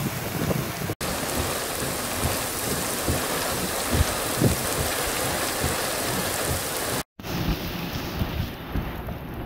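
Heavy rain pouring onto puddles and a wet dirt track, a steady hiss of rain. It cuts out briefly twice, about a second in and about seven seconds in.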